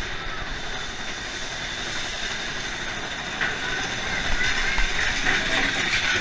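Mine-train roller coaster cars rolling through a tunnel: a steady rattle and rumble of the train on its track, growing somewhat louder about halfway through.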